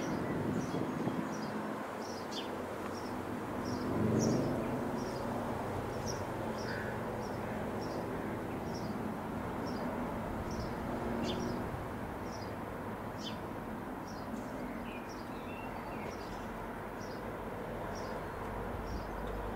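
Bell 505 Jet Ranger X single-turbine helicopter flying over at a distance: a steady rotor and engine drone that swells about four seconds in. A small bird chirps over it about every half second.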